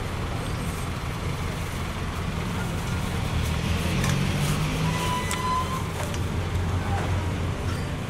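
Steady low rumble of road traffic, with faint voices in the background and a few light clicks.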